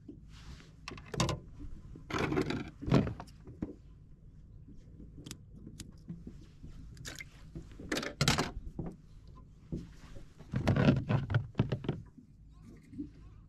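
Clatter and rustling of hands working a fish grip and scissors in several bursts, as a just-caught horse mackerel is bled by cutting its heart, over a steady low hum.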